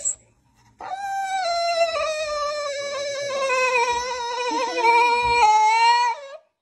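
Black French bulldog howling: one long wavering howl that begins about a second in, slides slowly down in pitch over about five seconds, and stops shortly before the end.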